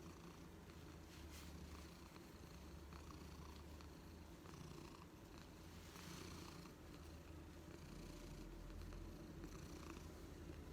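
Cat purring quietly and steadily, a low continuous rumble.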